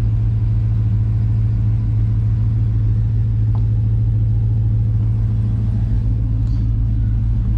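LS3 V8 idling steadily and smoothly.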